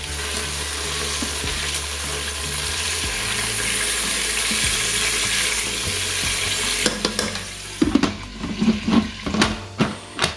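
Steak sizzling in hot oil in the Chef iQ pressure cooker's pot on its sear/sauté setting, a steady hiss. About seven seconds in the sizzle dies down and a string of sharp clicks and knocks follows as the steak is turned in the pot.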